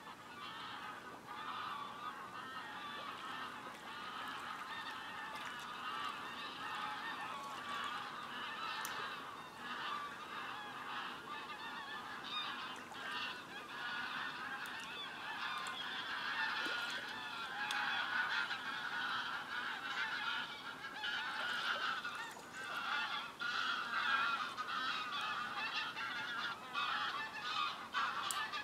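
A flock of geese honking continuously, many calls overlapping, growing somewhat louder in the second half.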